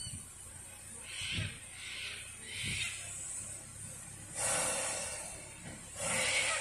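Narrow-gauge steam locomotive 8A letting off steam: three short hissing chuffs with low thumps in the first few seconds, then two longer, louder bursts of steam hiss about a second and a half apart.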